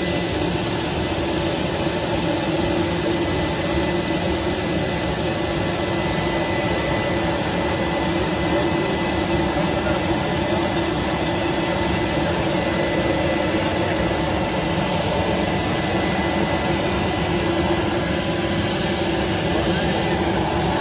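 Business jet's turbine running on the ground: a steady rushing noise with a thin high whine held throughout.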